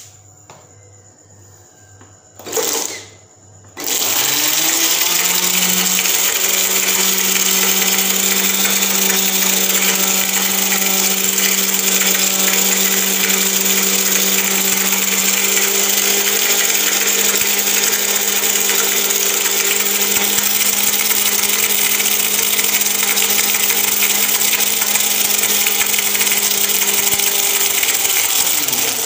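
Electric mixer beating mango, cream and sugar in a bowl: a short burst about two and a half seconds in, then the motor spins up about four seconds in, running at a steady speed and winding down just before the end.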